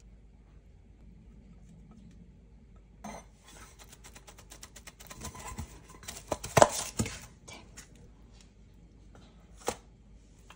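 Metal muffin tin jiggled and rattled on a stone countertop to level freshly poured melted chocolate in its paper liners: a run of rapid clattering that builds to a loud peak past the middle, then one sharp knock near the end.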